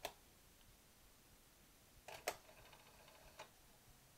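Near silence, broken by two close, light clicks about two seconds in and a fainter one near the end: fingers on the piano-key transport buttons of a 1970 Sony TC-120 cassette recorder.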